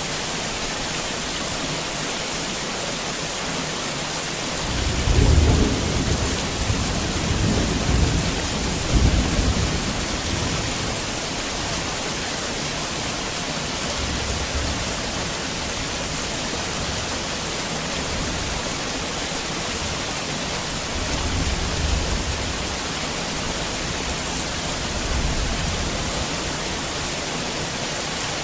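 Heavy rain falling steadily. A low roll of thunder rumbles in about five seconds in and lasts several seconds, and fainter rumbles return twice later.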